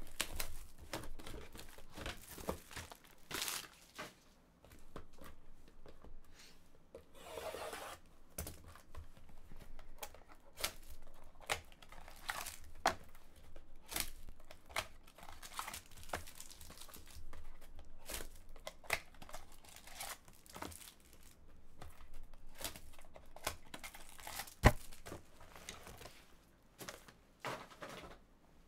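A cardboard box of 2015-16 Panini Absolute Basketball trading cards being torn open by hand and its plastic-wrapped packs handled: tearing, rustling and plastic crinkling with many small clicks and taps. One sharp snap stands out near the end.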